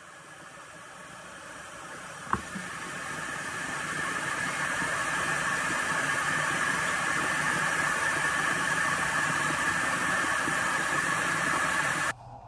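Bathroom tap running into a sink as a steady hiss, building up over the first few seconds and cutting off abruptly near the end. A single sharp knock about two seconds in.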